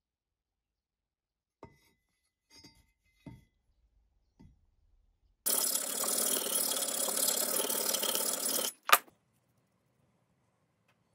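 Workshop tool handling: a few light knocks, then a steady hissing noise lasting about three seconds that starts and stops abruptly, followed by one sharp clack.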